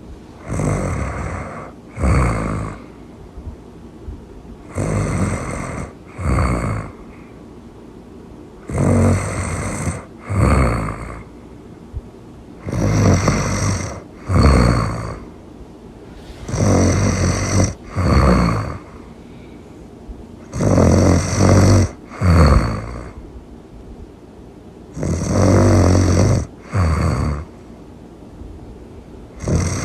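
Really loud snoring. Each snore is a longer rasp followed closely by a shorter one, and the pair repeats about every four seconds.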